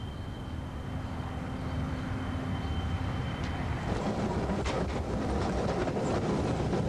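A steady outdoor hum with a faint high tone. About four seconds in, a louder rumble takes over as an old W-class wooden tram rolls past on its rails, with a few sharp clicks from the wheels and track.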